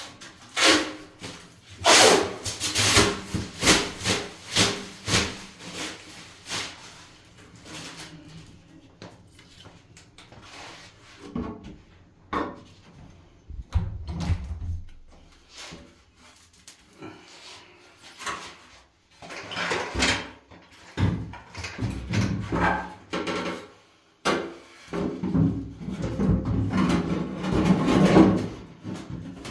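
Irregular knocks, taps and rubbing from hands-on work with tools and materials, with a quick run of sharp knocks early on and denser clattering and scraping in the second half.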